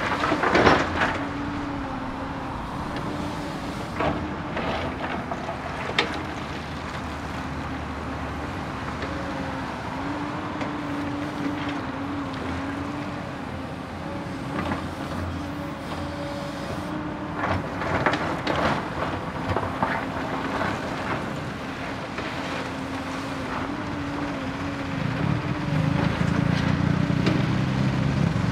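Komatsu PC240LC excavator's diesel engine running under working load, its pitch wavering as the hydraulics load and unload it. Metal clanks and rattles come through at times, a sharp one about half a second in and a run of them about two-thirds of the way through. Near the end the engine grows louder and deeper.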